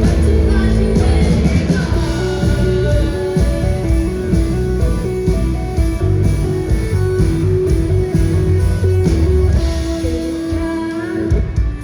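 Live rock band playing, with guitar, a steady beat and singing; the music thins out near the end.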